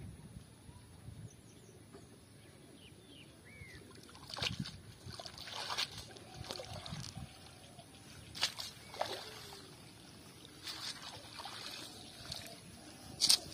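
Cast net being dipped and swished in pond water: irregular splashes and sloshing, several separate bursts, the loudest near the end.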